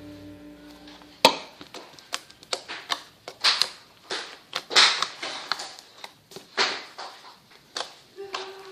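Slime being squeezed and pressed by hand: irregular sharp pops and crackles, a few a second with short gaps, starting about a second in as a held music chord ends.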